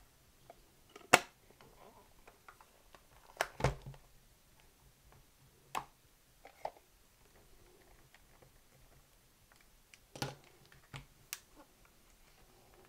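Scattered sharp clicks and knocks from a cassette recorder's chassis and faceplate being handled, turned over and set down on a workbench, the loudest a single knock about a second in.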